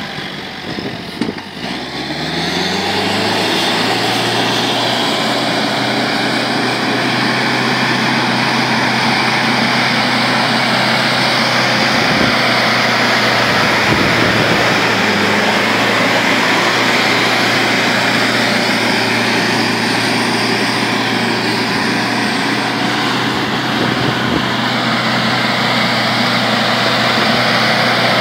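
Modified Mahindra 4x4 jeep's engine revving up over the first few seconds, then running steadily at high revs as the jeep pulls hard through soft sand, wheels spinning.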